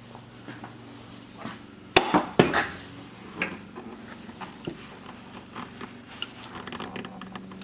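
A few sharp knocks and clatters of hard objects, the loudest pair about two seconds in and smaller ones after, over a faint steady hum.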